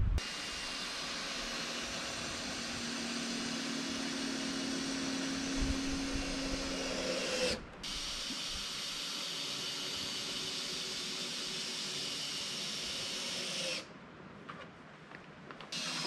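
A steady hiss in two stretches, the first of about seven and a half seconds with a low hum under it, then after a brief break about six seconds more, each cutting off abruptly. After that, quieter scattered clicks.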